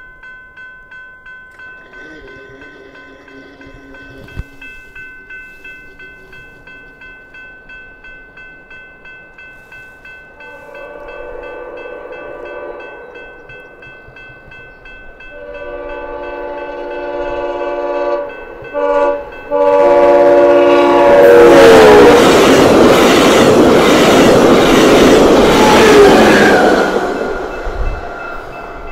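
Electronic crossing bell ringing about twice a second while a Via Rail Siemens Venture passenger train, pushed by an SCV-42 Charger locomotive, sounds its horn for the crossing. There are long blasts growing louder, then two short ones. A final blast drops in pitch as the train rushes past loudly, then fades.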